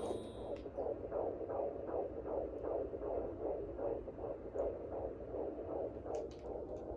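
Fetal heartbeat through the speaker of a handheld Premom SweetieSong pocket fetal Doppler: an even, rhythmic pulsing at about two and a half beats a second, a fetal heart rate of around 150 beats per minute.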